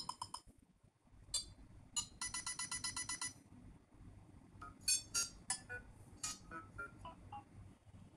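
Quiet synthetic ringtone beeps: a quick run of short electronic beeps about eight a second, then scattered glitchy chirps of varying pitch.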